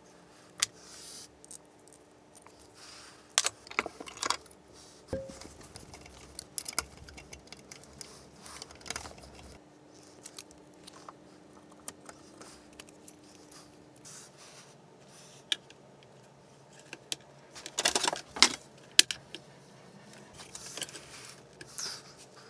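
Small metal hardware and tools handled on a workbench: screws and parts rattling in a plastic organiser, with scattered clicks and scrapes. A busier run of clicks and rattles comes near the end.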